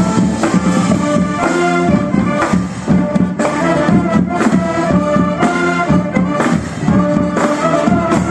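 Show band playing live: brass, including sousaphones, over drum kit and mallet percussion, in a steady beat.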